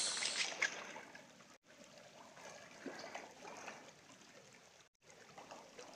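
Faint trickle and flow of murky river water, an even low hiss with small ticks, broken by three brief dropouts where the sound cuts out.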